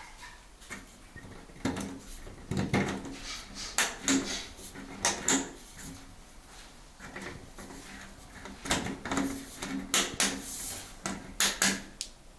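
A run of sharp knocks and clatters in two spells, the first about two to five seconds in and the second about nine to twelve seconds in: hard parts being handled and knocked during renovation work.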